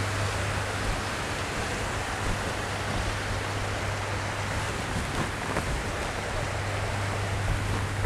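Steady rushing of an artificial waterfall, with a steady low hum underneath.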